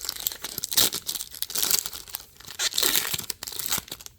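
Foil trading-card pack wrapper crinkling and tearing as it is opened by hand, a run of irregular crackles.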